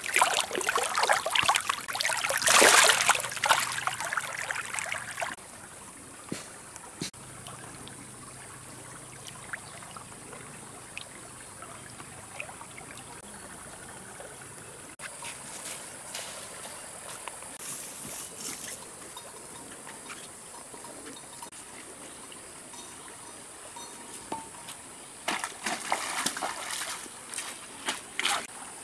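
Water splashing for the first few seconds, then a quiet steady trickle with small scattered splashes, and more splashing near the end.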